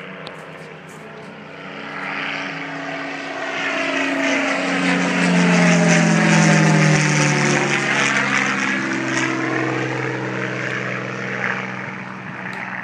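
P-51 Mustang's V-12 piston engine and propeller passing low overhead. The engine note grows louder to a peak about halfway through, drops in pitch as the plane passes, and then fades as it flies away.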